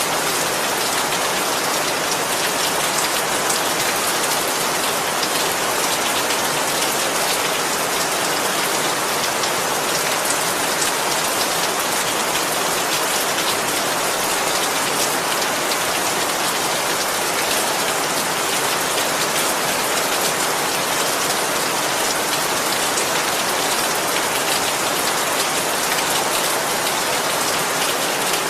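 Steady heavy rain falling and pattering on a surface, an even hiss of many drops with no thunder.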